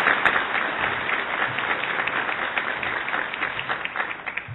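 Audience applauding, a dense clapping that tails off near the end.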